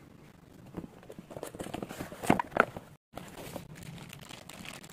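Plastic packaging crinkling and rustling as a boxed figure is unpacked from its cardboard box, with a few sharper crackles about two seconds in. The sound drops out briefly about three seconds in.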